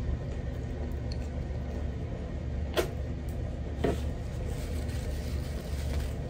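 Close-up wet mouth sounds of eating: chewing and sucking food off the fingers, with two sharp smacks about three and four seconds in, over a steady low hum.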